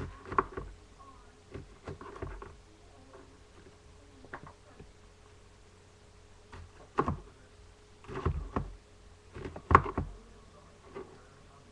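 A knife cutting cabbage on a cutting board: irregular knocks and thuds, a cluster of them late on with the loudest among them, over a faint steady hum.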